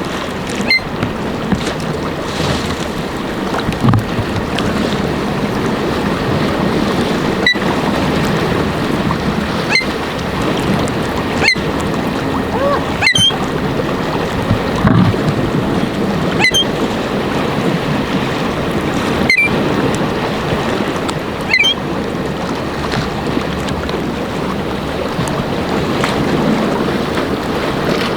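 Strong wind buffeting the microphone over rough, choppy lake waves, a loud steady rush. Short sharp clicks recur every two to three seconds.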